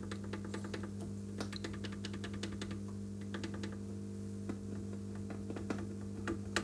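Epiphone Valve Special tube guitar amp humming steadily through its speaker, with irregular crackling pops several times a second. This is the crackle fault that the repairer traces to a poor ground connection in the amp.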